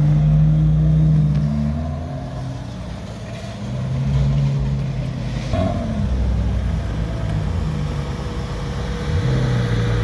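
Supercar engines running at low speed as the cars pull away, the engine note swelling and fading and growing louder again near the end.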